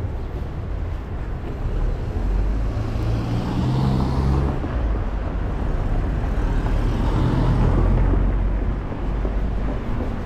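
Street traffic: two vehicles drive past one after the other, the first about four seconds in and the second near eight seconds, each a swell of engine rumble and tyre hiss over a steady low background.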